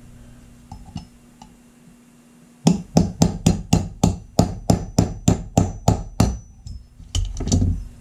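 Ball-peen hammer tapping a brass punch against the steel frame of an antique top-break revolver held in a bench block. A few faint clicks come first, then a quick, even run of about a dozen sharp metallic taps, roughly three or four a second. A couple of heavier knocks follow near the end.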